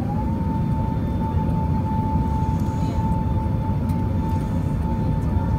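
Steady low rumble of engines and airflow inside an Airbus A380 cabin in flight, with a single steady whine that has just risen in pitch and holds level.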